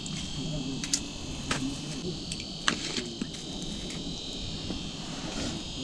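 A steady high-pitched hiss with a fixed whine in it. A few sharp clicks and taps from gear and a fish being handled on the ice fall about 1, 1.5 and 2.7 seconds in.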